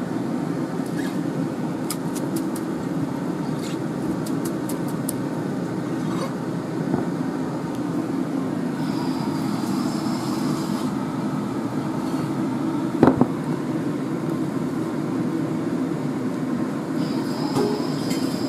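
A steady low whirring hum of running machinery, with a few faint clicks and one sharper knock about 13 seconds in.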